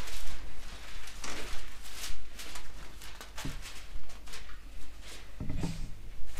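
Irregular rustling of thin paper pages with a few soft knocks, a Bible being leafed through to find a passage.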